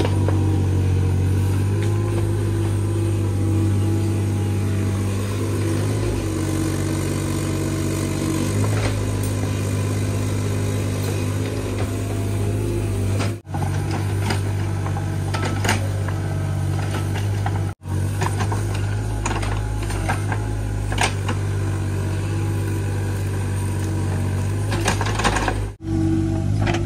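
Hitachi mini excavator's diesel engine running steadily under hydraulic load as the bucket digs soil out of a pit, with occasional clinks and knocks of the bucket against earth and stones.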